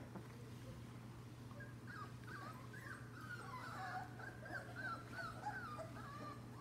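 Several young lab-mix puppies whining and whimpering, short high wavering cries overlapping one another from about a second and a half in. A steady low hum runs underneath.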